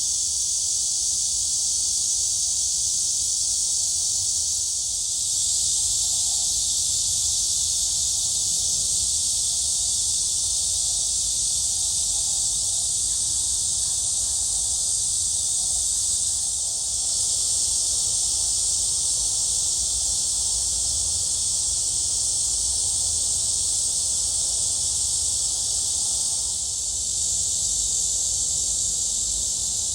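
Cicadas buzzing in a dense, continuous chorus: a steady high-pitched hiss that eases briefly a few times.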